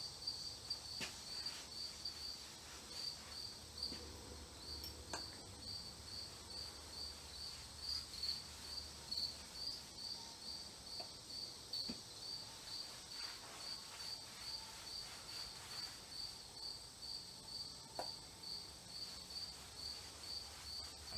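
A cricket chirping steadily in short high chirps, about two a second, with a few faint knocks here and there.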